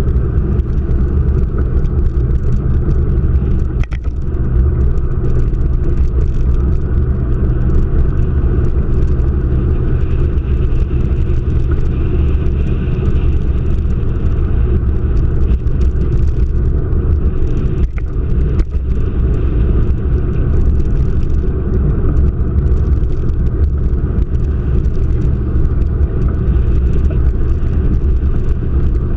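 Road vehicle running, a steady low rumble that holds even throughout.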